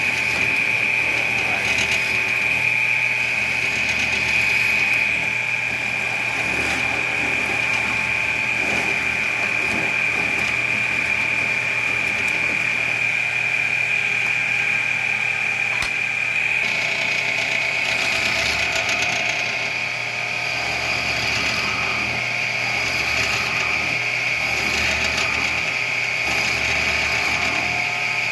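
Bench spindle moulder (tupi) running with a drill chuck and bit, boring and cutting a mortise into a wooden rail: a steady high-pitched motor whine with the bit cutting the wood, its sound shifting slightly a little past halfway.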